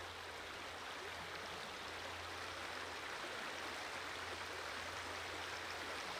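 Steady rush of a fast, riffled stream flowing around the wading angler.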